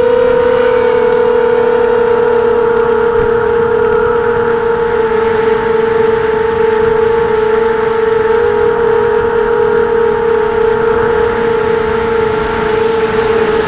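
Emax 250 quadcopter's four Emax MT2204 brushless motors spinning Gemfan 5x4 props in flight, a steady whine whose pitch drifts slowly lower.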